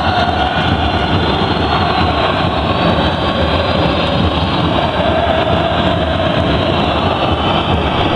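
Steady, loud din of a large crowd of spectators packed into an indoor sports hall.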